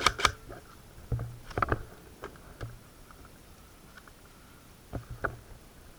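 A series of sharp clicks and knocks: a quick cluster right at the start, then single ones spread through the rest.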